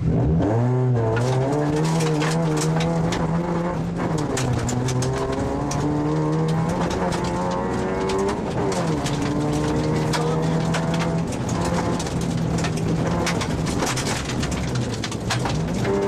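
Rally car engine heard from inside the cabin, under hard acceleration on a gravel stage: the note climbs and drops repeatedly through gear changes. Gravel clatters and pings against the car's underside throughout.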